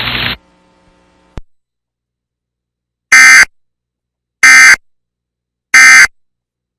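Emergency Alert System end-of-message data tones: three identical short, loud digital screeching bursts about 1.3 s apart, marking the end of the severe thunderstorm warning. Before them the radio hiss cuts off and there is a brief click.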